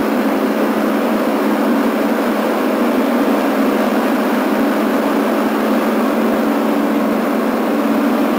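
John Deere D170 lawn tractor's V-twin engine running steadily while it drives and mows grass.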